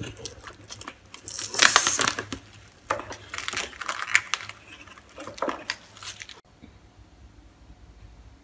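Plastic cling film crinkling and rustling in several bursts as it is pulled from its box and stretched tight over a bowl; the sound stops suddenly about two-thirds of the way through.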